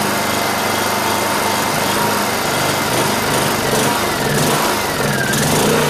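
Honda EU2000i inverter generator's small single-cylinder engine running on propane, its pitch dropping twice in the second half. It is running on the last of the gas left in the hoses and starting to starve.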